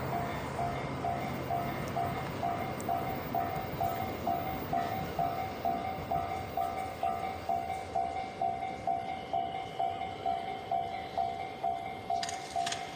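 Japanese level-crossing warning bell ringing steadily, about two dings a second, over the noise of a passing train that fades away. A brief high-pitched sound comes near the end.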